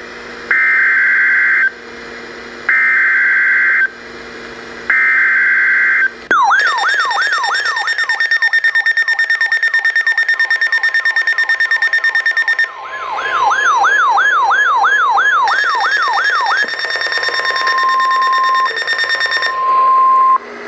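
NOAA Weather Radio alert signal: three buzzy digital SAME header bursts of about a second each, then a warbling alarm of rising tone sweeps, about two a second, and near the end a steady tone near 1 kHz, the 1050 Hz warning alarm tone, broken once. Together they announce a new severe thunderstorm warning.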